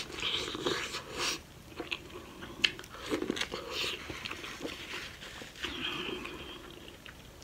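Close-miked biting and chewing of a sauce-coated boiled corn cob, with wet mouth sounds and sharp clicks scattered through.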